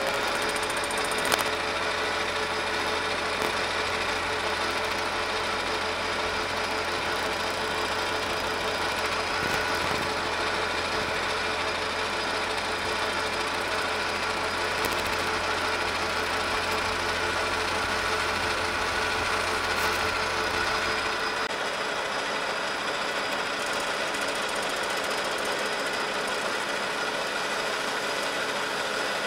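Metal lathe running steadily under power, its motor and gear train giving a steady whine, while a tool bit faces the end of a model steam engine cylinder mounted on an arbor. A sharp click about a second in; about two-thirds of the way through the low hum drops away while the whine carries on.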